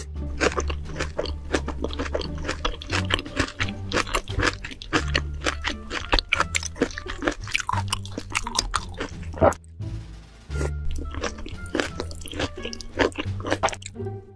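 Close-miked crunching and chewing of food in big mouthfuls, a run of sharp crunches over a steady bass line of background music.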